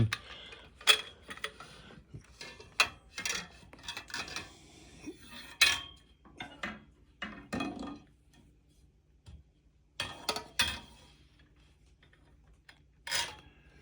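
A metal bolt and washers clinking and tapping against other parts as they are handled and fitted, in scattered irregular knocks with a couple of quiet gaps.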